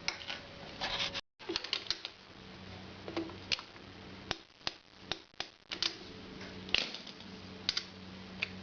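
Irregular metallic clicks and clinks of a spanner working the small 11 mm rocker box bolts, over a faint steady hum.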